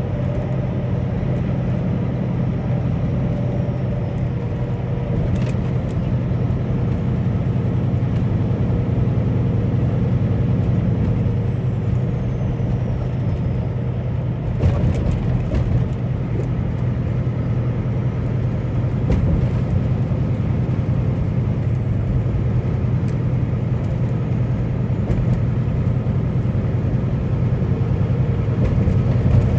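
A truck on the road, its engine and road noise making a steady low rumble, with a couple of brief knocks about five seconds and fifteen seconds in.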